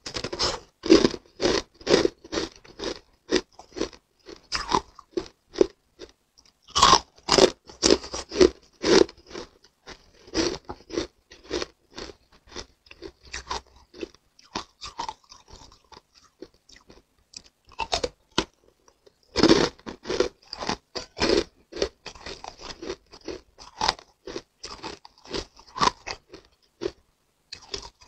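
Close-miked crunching and chewing of hard flower-shaped pieces of pink ice, many sharp crunches in quick runs with short lulls between bites.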